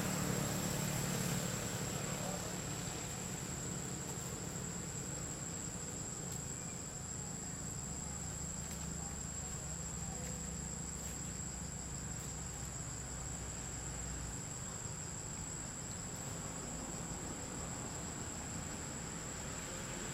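Insects droning steadily at one high pitch, an unbroken forest insect chorus, over a low steady rumble.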